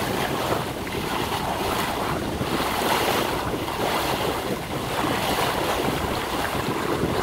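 Water rushing and splashing along the hull of a moving boat, a steady wash, with wind buffeting the microphone.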